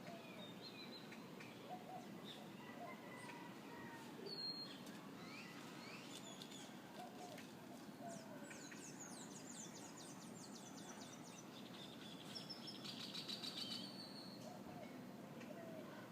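Several birds chirping and calling, with short rising and falling notes and, in places, fast high trills, over a faint steady background rush.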